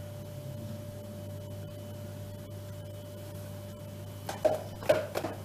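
Over a steady low hum, a few short knocks and scrapes come about four seconds in: a metal spatula against a bowl as whipped cream is scooped up.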